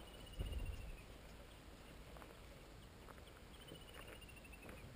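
A bird's trill, a quick run of notes sliding slightly down in pitch, heard twice for about a second each: just after the start and again near the end. Faint scattered clicks and a brief low wind rumble on the microphone sit underneath.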